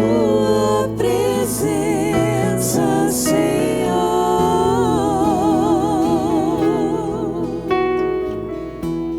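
Christian worship music: a singer holding long notes with vibrato over sustained instrumental accompaniment, easing off near the end.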